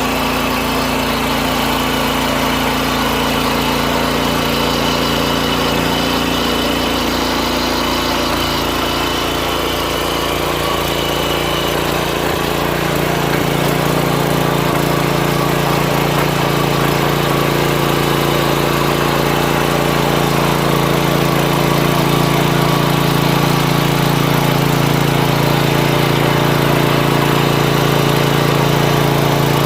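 Small engine of a mini tiller running steadily as it works the soil; about halfway through its tone changes and it gets a little louder.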